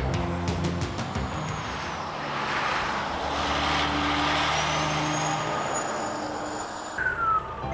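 Big-rig semi truck passing by on the road, its noise swelling to a peak about four seconds in and then fading.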